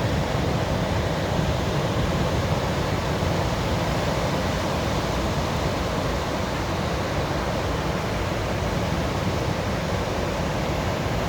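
Sea waves washing onto a beach, heard as a steady, even surf noise with no separate breaks standing out.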